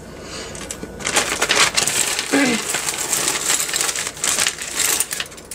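Costume jewelry clinking and jingling while hands rummage through a clear plastic zip-top bag of beaded necklaces, with the plastic crinkling. It starts about a second in as a dense run of small metallic clicks and rustles, and dies down near the end.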